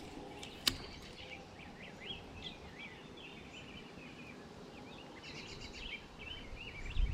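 Small birds chirping repeatedly over a faint outdoor background, with one sharp click just under a second in.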